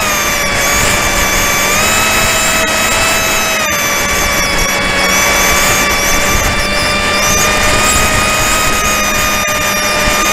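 A model airplane's motor and propeller whining steadily in flight. The pitch drops right at the start as the throttle comes back, lifts a little about two seconds in, then holds, over a constant rush of wind noise.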